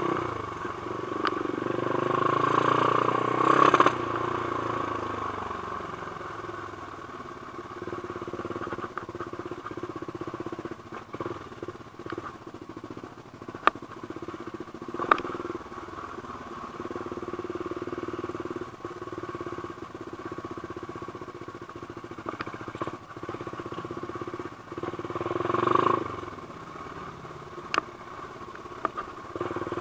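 Off-road trail motorcycle engine running steadily as the bike is ridden. It swells louder near the start and again near the end, with a few sharp knocks along the way.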